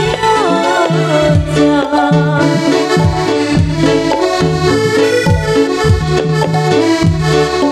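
Live Dolalak dance music: an electronic keyboard melody over a steady drum beat.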